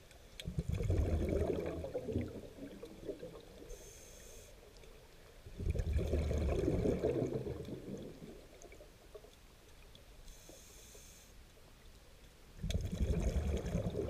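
Scuba diver breathing through a regulator underwater: three bursts of exhaled bubbles rumbling, each about two seconds long, with a short hissing inhalation through the regulator before the second and third.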